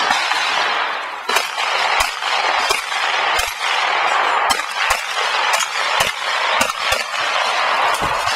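CZ SP-01 Shadow 9mm pistol firing about a dozen shots at an uneven pace, singles and quick pairs about half a second to a second apart, over a steady hiss.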